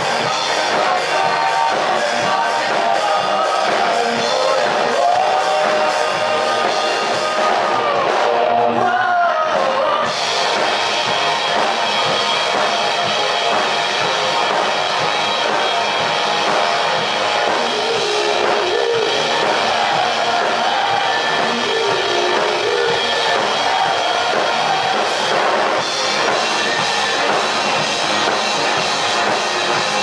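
Four-piece rock band playing live: a male lead singer sings over electric guitar, bass guitar and drum kit.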